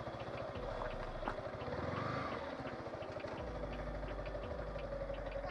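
Yamaha R15M's 155 cc single-cylinder engine running at low revs as the bike rolls slowly, then idling with the bike stopped in neutral.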